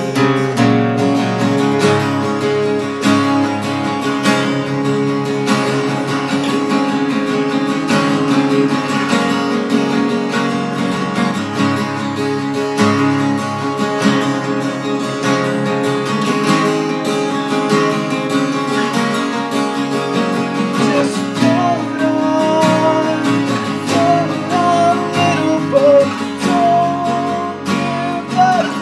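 Two acoustic guitars strummed and picked together in an instrumental passage of a song. A wavering higher melody line joins over the last several seconds.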